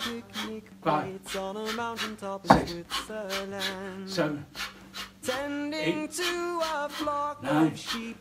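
Background song: a man singing over a steady beat.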